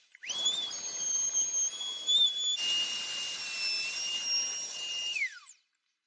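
Electric wood router whining at speed as it cuts a rebate for the glass into a timber beam. It spins up at the start, its pitch drops and the cutting noise grows about two and a half seconds in, and it winds down with a falling whine near the end.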